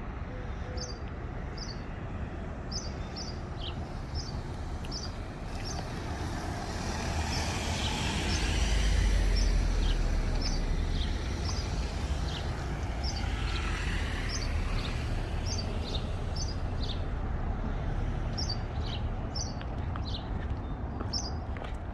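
A motor vehicle passes, its noise and low rumble swelling to a peak about nine seconds in and then fading, over a steady traffic hum. A small bird chirps over and over in short, high notes throughout.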